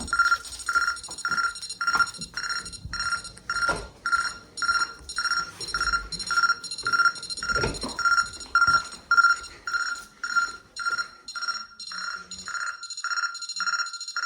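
Scantronic ION alarm sounding its warning: an electronic beep repeating steadily about twice a second, with a few dull knocks in between. The beeping cuts off suddenly near the end as the system is unset.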